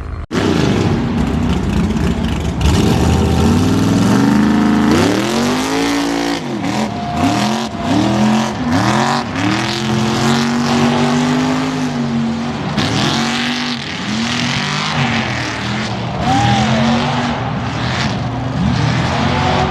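A vehicle engine revving hard, its pitch climbing and dropping over and over, many times about once a second in the middle stretch, over a steady rushing noise.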